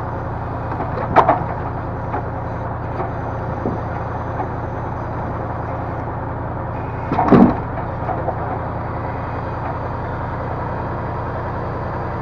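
Diesel engine of a timber loader crane running steadily, with two knocks, about a second in and about seven seconds in, as logs are handled.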